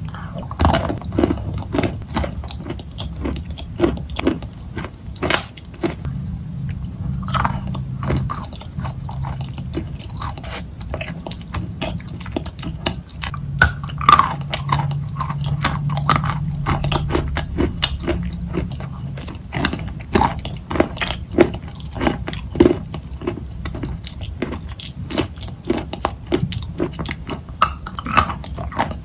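Close-up biting and chewing of chunks of wet chalk coated in clay paste, an irregular run of many sharp wet clicks.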